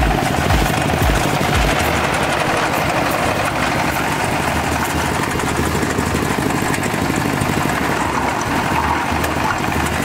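Engine-driven silage machine running steadily while corn stalks are fed into it, with low thumps about twice a second near the start and again near the end.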